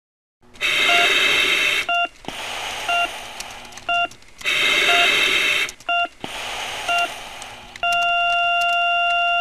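Respirator hissing through two breath cycles, each a loud push and a softer return, while a heart monitor beeps about once a second. Near the end the beeps become one continuous tone: a flatline, the sign that the heart has stopped.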